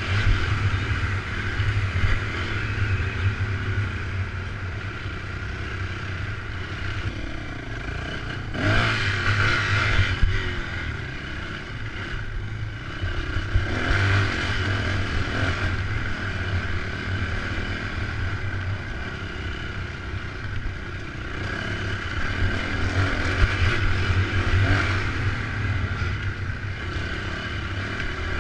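Dirt bike engine running steadily while riding a trail, heard from the rider's helmet camera. The engine rises in a few throttle surges, about nine seconds in, again around fourteen seconds, and near the last few seconds.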